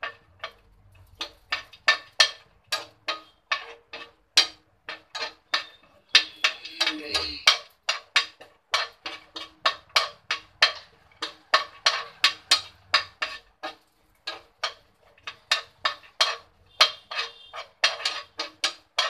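Spatula scraping and tapping against a nonstick frying pan while cashews and almonds are stirred in hot ghee. The strokes come in a quick, even rhythm of about three a second, with one longer scrape about six seconds in.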